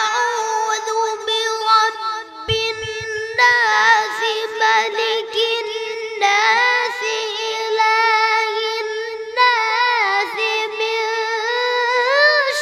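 A young boy reciting the Quran in melodic tajweed style, holding long high notes with wavering ornaments and starting a new phrase every few seconds.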